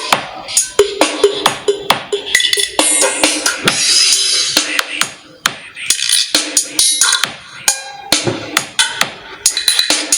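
Music with a busy drum-kit beat, thin in the bass, played back through a phone's small loudspeaker as a sound check.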